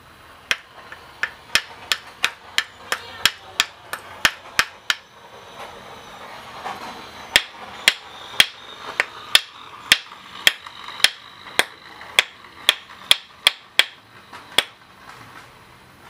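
Screwdriver handle tapping on a small string-trimmer carburetor body, a run of sharp knocks about three a second, a short pause, then a second, slower run of about fifteen taps, knocking loose a stuck part of the carburetor.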